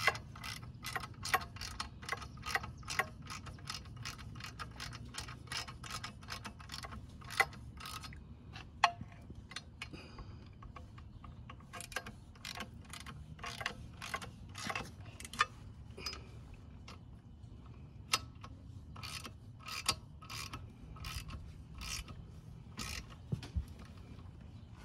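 Socket ratchet wrench clicking in quick runs as it tightens the exhaust header flange fasteners, with a short lull about ten seconds in.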